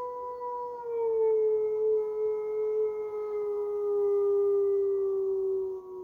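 Grey wolves howling: one long howl held for the whole stretch and sliding slowly down in pitch, with a second, higher howl joining about a second in.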